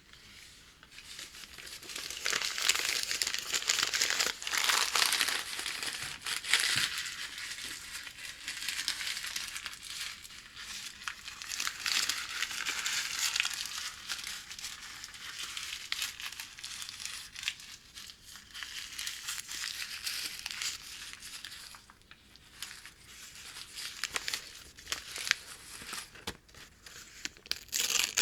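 Brown packing paper crinkling and crackling as hands handle it, a dense run of small crackles that builds up over the first couple of seconds and eases briefly about three-quarters of the way through.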